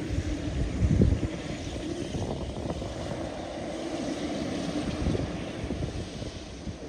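Jet engine rumble from a Boeing 787-9 Dreamliner, with wind buffeting the microphone, hardest about a second in.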